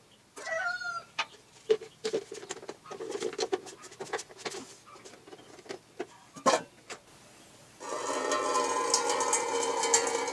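A chicken clucks once about half a second in, followed by scattered small clicks and knocks of hand work at the tractor's fuel sediment bowl, the sharpest about six and a half seconds in. About eight seconds in, background guitar music starts and carries on.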